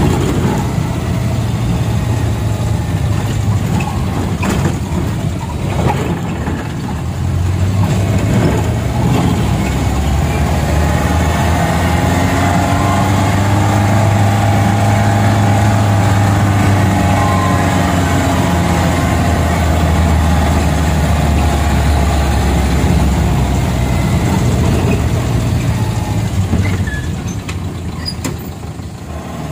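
Angkot minibus engine running while under way, heard from inside the vehicle, its pitch rising and falling as the speed changes. The engine note drops briefly near the end.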